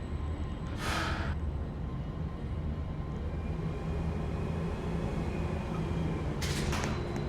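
Hyundai atrium elevator car travelling between floors, a steady low hum of the ride. Two brief hissing sounds come through, one about a second in and one near the end.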